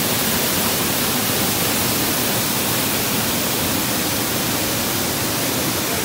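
Small waterfall cascading over rock: a loud, steady rush of falling water.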